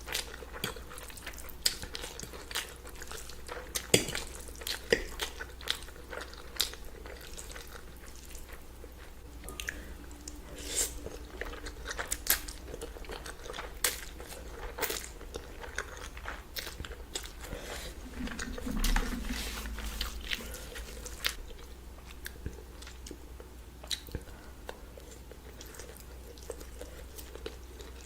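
Close-miked eating: crisp bites and crunchy chewing, with many irregular sharp crackles over a steady low hum.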